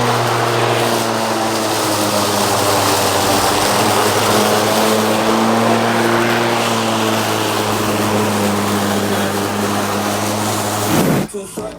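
Lawnmower engine running steadily at a constant pitch while cutting grass. It cuts off abruptly near the end and music starts.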